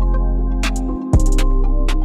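Background music: an instrumental beat with deep sustained bass and sharp drum hits. The bass cuts out briefly about a second in, then the beat comes back in.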